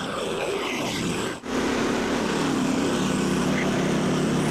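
Engine of a Frontier OS27 portable band sawmill running steadily, with a brief break about a second and a half in.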